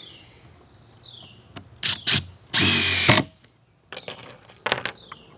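DeWalt Atomic 20V compact brushless impact driver running a 3-inch screw into treated lumber: a couple of short bursts, then a loud whirring run of about half a second near the middle, followed by a few faint ticks. It drives with only light hammering, which the owner takes as the sign of its greater torque.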